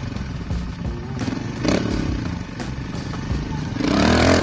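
Trials motorcycle engine revved in short blips as it works over rock, one about a second and a half in and a longer, louder one near the end.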